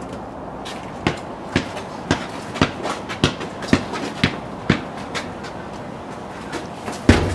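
A basketball being dribbled, bouncing about twice a second, the bounces fading out after about five seconds. Near the end a single louder thud.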